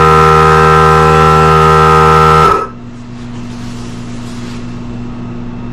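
Pneumatic chamfering tool set into a chamfer table, running with a loud steady whine, then stopping abruptly about two and a half seconds in. A much quieter steady low hum carries on after it.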